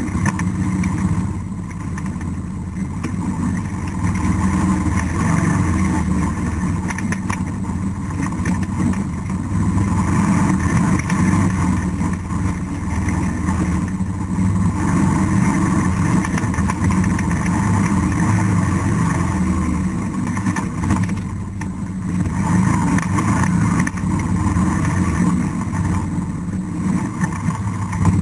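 ATV engine running steadily at trail-riding speed, the throttle easing off briefly a couple of times.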